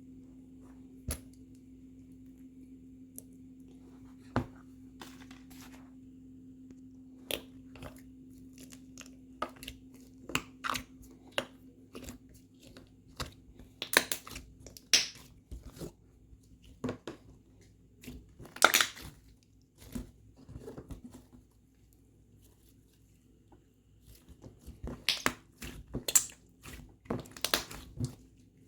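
Slime being squeezed and played with by hand, giving irregular crackles and crunches. They are sparse at first, then come in louder clusters through the middle and near the end.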